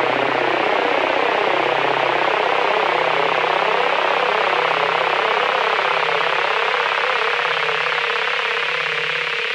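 Synthesized horror sound effect: a loud, harsh swirling noise drone over a low pulsing hum, steady throughout.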